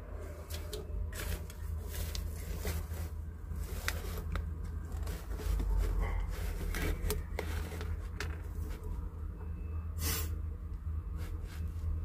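Eastern Hermann's tortoise chewing cucumber and greens: a run of small, irregular crunches and clicks, with one louder crackle about ten seconds in, over a low steady rumble.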